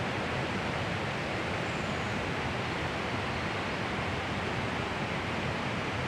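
Steady rush of a flowing river, an even noise with no breaks.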